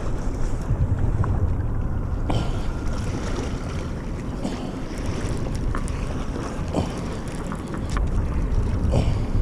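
Wind buffeting the microphone: a steady low rumble that rises and falls, with a few faint clicks and taps.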